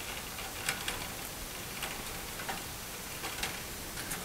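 Scattered light clicks and ticks of wires and connectors being handled and tugged inside a sheet-metal fluorescent light fixture, over a steady hiss.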